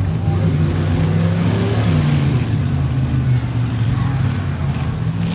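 V8 engines of demolition derby stock cars running and revving, loud and steady throughout.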